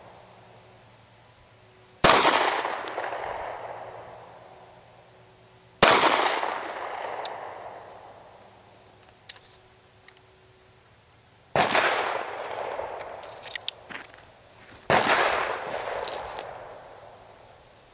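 Four gunshots at an outdoor range, each sharp crack followed by a long echo that fades over two to three seconds. A few faint clicks sound between the shots.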